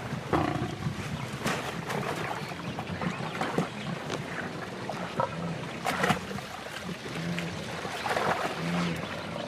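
Water splashing and churning in an irregular run of strokes as a lioness attacks a wildebeest in a shallow creek.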